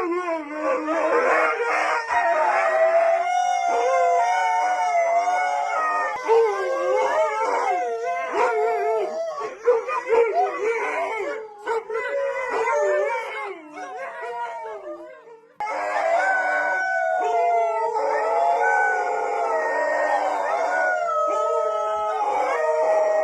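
Several dogs howling together, long overlapping calls that waver and glide in pitch. About 15 seconds in, the sound cuts abruptly to another bout of group howling.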